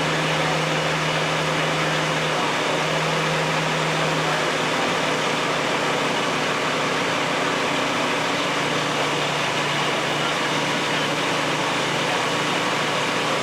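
An engine running steadily, a constant mechanical hum with a low tone that shifts slightly in pitch a few seconds in.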